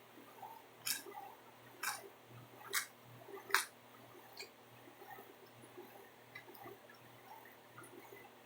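Faint chewing of a mouthful of pizza, with four sharp wet mouth smacks about a second apart in the first four seconds, then only small soft mouth sounds.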